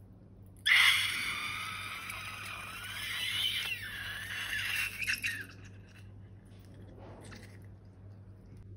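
Rubber balloon squeaking with a hissing rush that starts suddenly under a second in and lasts about five seconds, its squeaky pitch sliding up and down.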